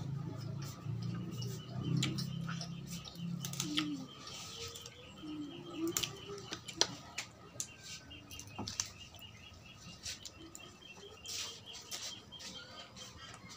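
Close, sharp crackles and clicks of food being torn apart by hand and chewed, with birds chirping in the background. A low drone sounds during the first few seconds.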